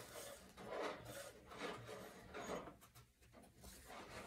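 Faint, repeated scraping strokes of a stick wiping acrylic paint drips off the edge of a canvas.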